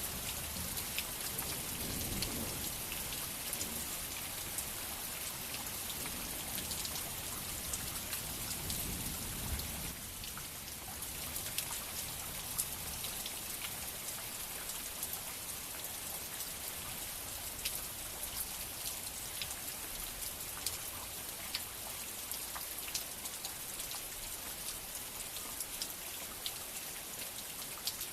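Heavy rain falling steadily, with many sharp drop impacts on a nearby surface. A low rumble sits under it for the first ten seconds or so.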